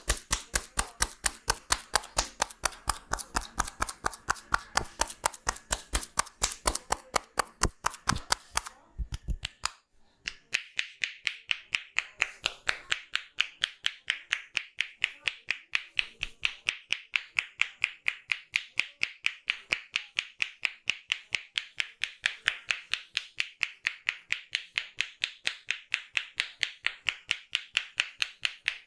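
Rapid, even percussive tapping of a barber's hands on the head in an Indian head massage, about five strikes a second. For the first nine seconds the strikes are fuller and deeper; after a brief pause they start again brighter and more clap-like.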